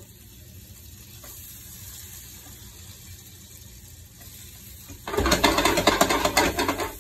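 Flour-coated soft-shell crabs going into hot olive oil: a faint steady hiss, then about five seconds in a sudden loud crackling sizzle of frying that lasts about two seconds.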